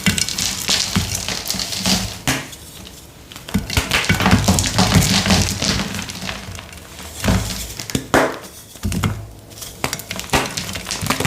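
Blocks of gym chalk being crushed and crumbled by hand: dense, irregular crunching and crackling that eases off briefly twice.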